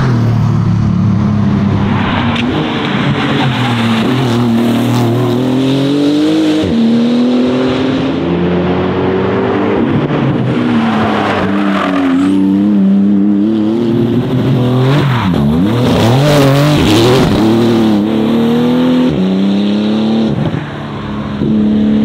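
Porsche 911 GT2 RS's twin-turbo flat-six engine at racing speed, its revs climbing and falling again and again through gear changes and braking.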